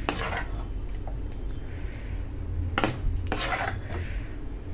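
Metal ladle scraping and clinking against the frying pan as thick gravy is scooped out into a serving bowl: one scrape at the start and two more about three seconds in, over a low steady hum.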